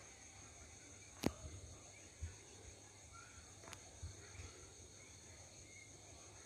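Faint, steady high chirring of night insects, with a sharp click a little over a second in and a fainter one near the middle.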